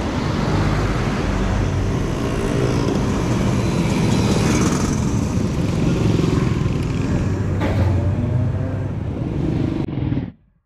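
Street traffic dominated by small motorcycle engines running past close by, steady and loud throughout; the sound cuts off abruptly near the end.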